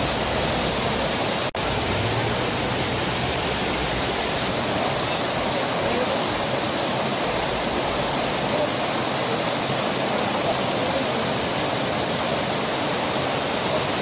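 Snowmelt mountain stream rushing and splashing over rocks below a waterfall, a loud steady rush of water. It breaks off for a split second about one and a half seconds in.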